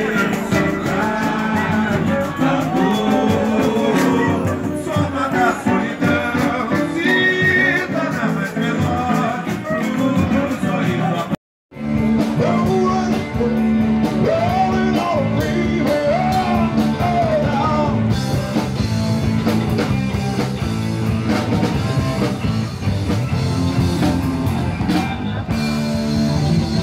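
Live rock band playing, with electric guitar, drums and singing. The sound cuts out completely for a moment a little before halfway.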